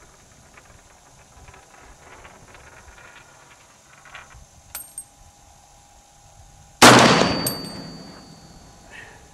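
A single shot from an M1A semi-automatic rifle in 7.62x51 NATO, a sharp loud crack about two-thirds of the way in, trailing off in an echo over a second or so. A couple of faint sharp ticks come a couple of seconds before it.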